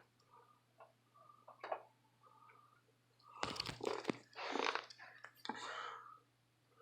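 HP Envy 4520 inkjet printer starting up after being switched on. A few faint short sounds come first, then about three seconds of louder, noisy mechanism sounds with a couple of sharp clicks, over a steady low hum.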